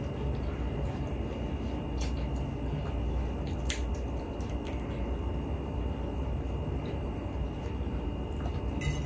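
Steady low room hum and hiss, with a few faint short clicks.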